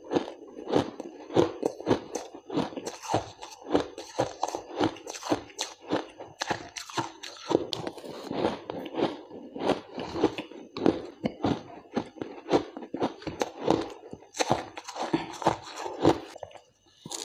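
Shaved ice crunched between the teeth: a steady run of sharp, crisp crunches, two or three a second, with a brief pause near the end.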